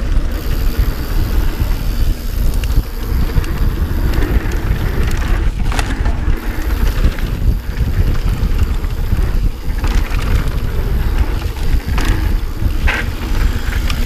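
Mountain bike descending a dirt trail: a steady rush of wind buffeting the microphone over the rumble of tyres on packed dirt, with a few short clicks from the bike over bumps.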